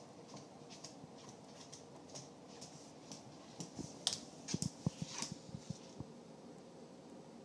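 Faint clicking of a cat's claws and paws on a hardwood floor as it runs. About halfway through comes a short flurry of louder soft thumps and clicks.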